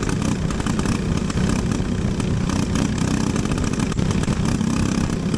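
Briggs & Stratton LO206 single-cylinder four-stroke kart engine running on track, heard from on board the kart. This is the engine with the stumble that sets in on track and makes it die.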